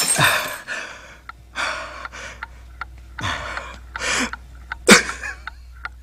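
A person gasping and choking for breath several times, with sharp rasping intakes, the sharpest at the start and about five seconds in: the sound of someone being strangled, acted for a radio drama. A faint low hum runs underneath.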